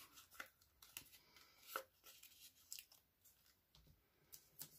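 Faint rustling and scattered light clicks of cardstock pieces with foam adhesive dimensionals being handled and set down on a tabletop.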